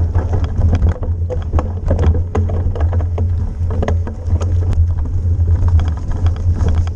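Mountain bike ridden fast down a rough dirt forest trail: a steady low wind rumble on the camera microphone, with frequent short rattles and knocks from the bike over the bumpy ground.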